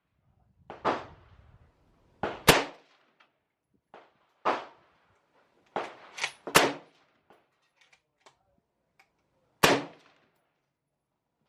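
Gunshots at a shooting range: about eight single shots fired at irregular intervals, some sharp and loud and others softer, each with a short echoing tail.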